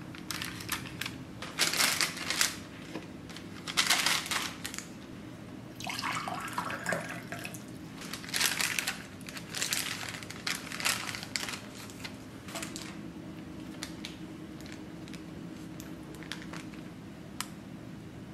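Parchment paper and a plastic piping bag crinkling and rustling as they are handled, in a series of short bursts with small clicks. The bursts are loudest in the first few seconds and thin out to faint ticks near the end, over a faint steady low hum.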